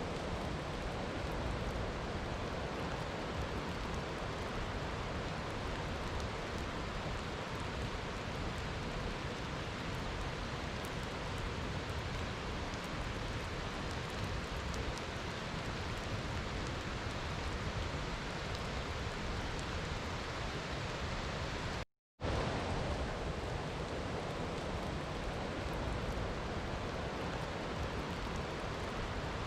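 Steady rainfall, an even, unbroken hiss. Near the end it cuts out completely for a split second, then resumes just as before.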